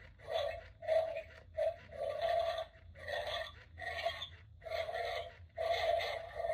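Animated skeleton-dog Halloween prop playing recorded dog snarls and growls through its speaker, a string of short bursts one or two a second.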